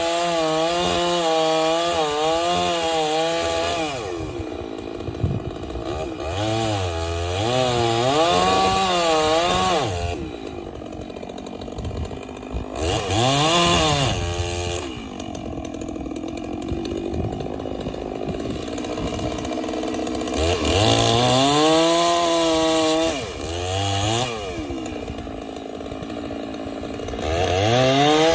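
Chainsaw cutting a dead standing tree for felling. The engine revs up under load with a wavering pitch and drops back toward a lower speed several times between cuts.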